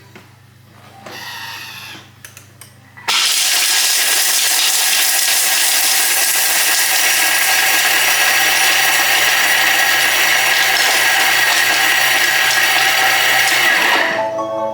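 Thermomix running at high speed, its blades grinding pieces of dark baking chocolate into powder: a very loud, steady whirring grind that starts suddenly about three seconds in, after a few clicks, and drops away near the end.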